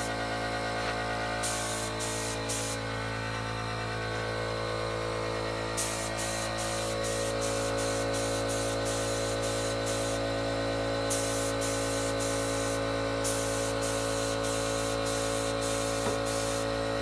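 Background electronic music with sustained tones, and stretches of high hissing noise that start and stop every second or so.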